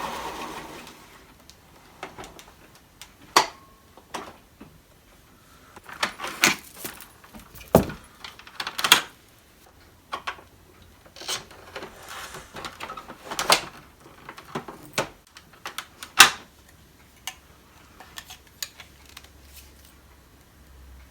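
A 1996 Hoover Preferred Elite upright vacuum's direct-air motor winding down after being switched off, then scattered clicks, knocks and clatter from the machine and its parts being handled.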